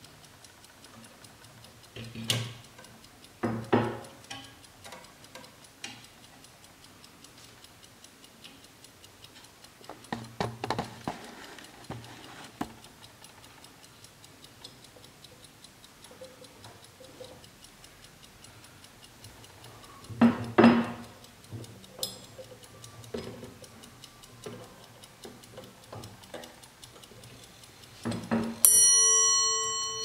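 Vintage gilded Swiss mantel clock ticking, with several sharp clicks and knocks as its rear grille door and back housing are handled. Near the end the clock's bell is struck once and rings on, slowly fading.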